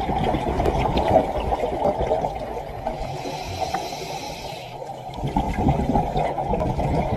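Rushing, splashing water: a steady, churning noise.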